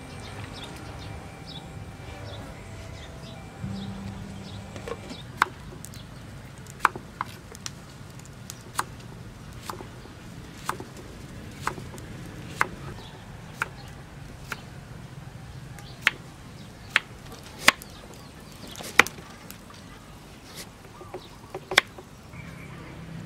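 Kitchen knife slicing cucumber and then carrot on a wooden chopping block: sharp, separate knocks of the blade on the board, roughly one a second, starting about five seconds in.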